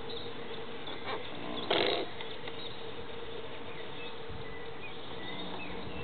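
Radio-controlled model tug's small electric drive humming steadily as it runs. A short burst of noise comes about two seconds in, and a few short high chirps follow in the second half.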